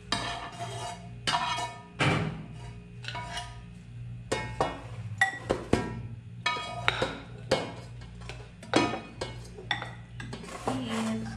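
A spoon scraping and knocking against a frying pan and a ceramic bowl as the stir-fry is scooped out, in a run of irregular clinks and taps, over background music.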